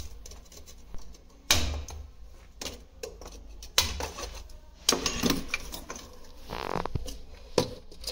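Hard objects knocking and clattering at irregular intervals, about five sharp knocks in all, with a brief scraping rustle about six and a half seconds in.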